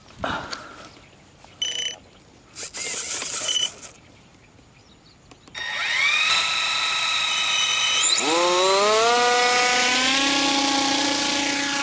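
Small electric motors of a radio-controlled Magnus-effect model aircraft spinning up on the ground. A high whine rises and holds about halfway through, a second, lower whine rises about two seconds later, and both then run steadily. Before that there are a few short knocks and rustles.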